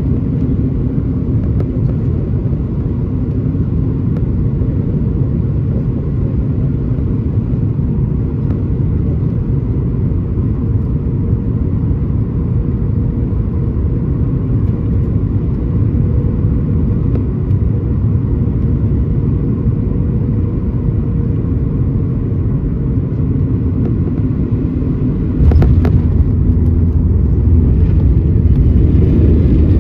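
Inside the cabin of a Boeing 737-900ER on final approach: a steady low rumble of airflow with a faint constant hum from the CFM56-7B turbofan engines. About 25 seconds in, a sudden jolt and a heavier, louder rumble as the main wheels touch down and roll on the runway.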